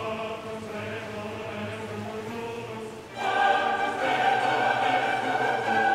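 Closing music with a choir singing long held notes, growing louder and fuller about three seconds in.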